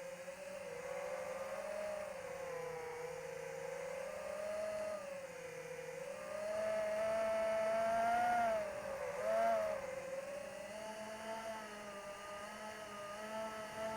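Electric motor and propeller of an AtomRC Dolphin RC plane whining in flight, the pitch rising and falling with the throttle. It is loudest and highest about seven to nine seconds in, with a short surge just after.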